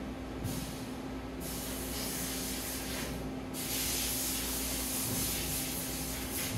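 Bursts of rushing hiss, like an air or spray jet, three in a row, the last lasting about three seconds, over a steady low machine hum.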